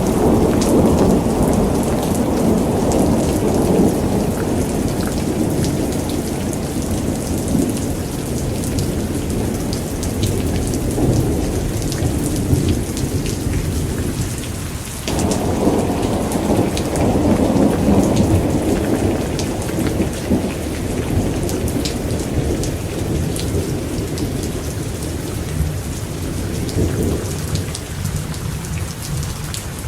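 Thunderstorm: steady heavy rain with individual drops ticking, under long rolls of thunder. One roll fades over the first half, and a second starts suddenly about halfway through and dies away toward the end.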